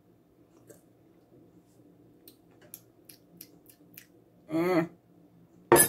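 Quiet sipping of hot coffee from a mug, with a few faint clicks, over a faint steady hum; a short tasting "mmm" about four and a half seconds in, then a single sharp knock near the end.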